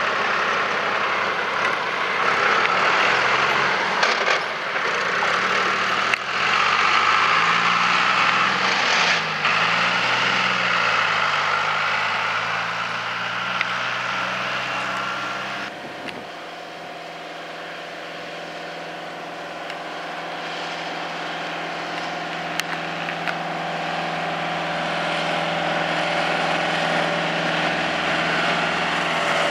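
A John Deere tractor with a rear-mounted flail verge mower running, its engine pitch dipping and rising about a third of the way in. About halfway the sound changes to a New Holland tractor's engine running steadily and growing louder as it approaches, towing a hay rake.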